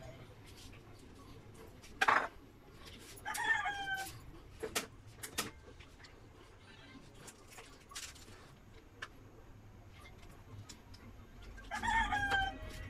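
A rooster crowing twice, once about three seconds in and again near the end, with a sharp knock about two seconds in and a few fainter clicks.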